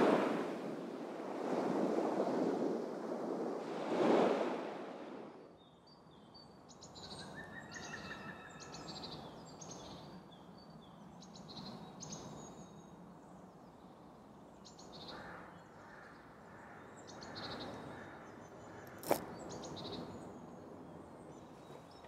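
A loud rushing noise that surges twice in the first few seconds, then quiet outdoor ambience with birds chirping and twittering. A single sharp click sounds near the end.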